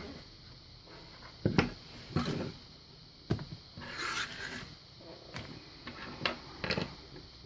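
A picked Yale Punisher lock and picking tools being handled: about six separate clicks and knocks, with a short scraping rub about four seconds in.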